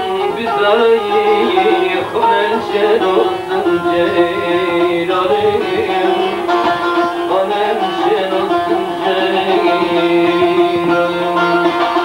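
Bağlama (long-necked Turkish saz) being played: a plucked, quickly moving melody over a steady held drone note.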